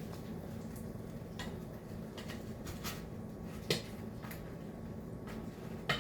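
Kitchen utensils clinking and clicking against dishes as food is plated: a scattered series of light, sharp clinks, the loudest a little past halfway and near the end, over a low steady hum.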